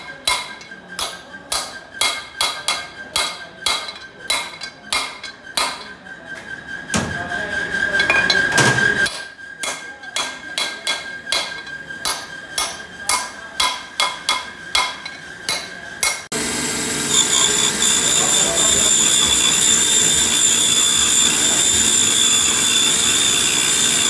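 Hammer blows on a steel drift seated in a valve port of a diesel engine cylinder head, about two to three sharp strikes a second. About two-thirds of the way through this gives way suddenly to the steady grinding of a valve refacing machine, its stone grinding a valve face.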